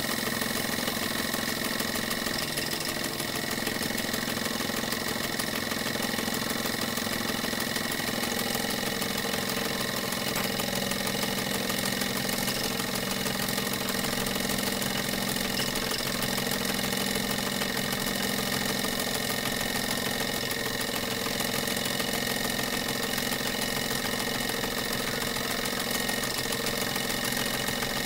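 Two small live-steam model engines running together, a Mamod steam tractor and an old German vertical-boiler steam engine: a steady mechanical running sound with a constant hiss and no change in pace.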